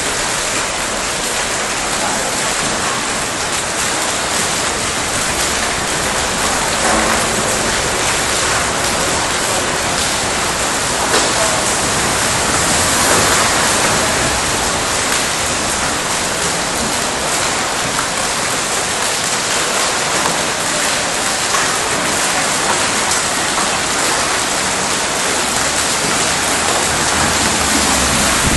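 Heavy hail mixed with rain pelting stone paving and a wet street, a dense, steady noise that swells slightly now and then.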